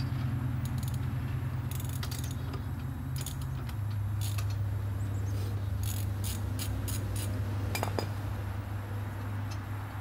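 Loosened lug nuts being unscrewed from the wheel studs with a lug wrench and by hand, with scattered light metallic clinks and jingles as the nuts and wrench knock together. A steady low hum runs underneath.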